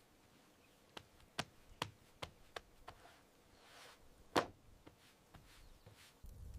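A series of short sharp knocks or taps, about two or three a second, with one louder knock a little past the middle.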